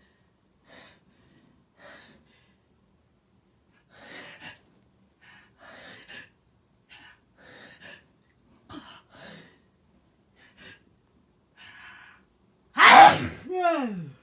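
A person taking a string of short, breathy gasping in-breaths, then letting out one very loud sneeze near the end, its voiced tail falling in pitch.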